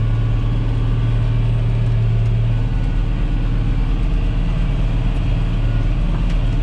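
John Deere 8100 tractor's six-cylinder diesel engine running steadily while it pulls a disc harrow, heard inside the cab as a low drone. About three seconds in its note drops a little and softens.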